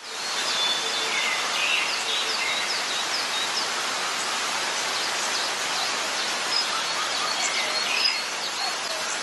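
Outdoor ambience: a steady hiss with small birds chirping again and again throughout.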